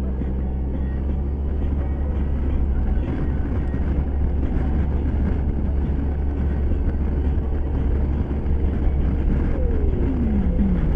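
Wind rushing over a helmet-mounted microphone, with the drone of a Suzuki Burgman 650's parallel-twin engine and road noise as the scooter cruises at highway speed. A short falling tone comes about ten seconds in.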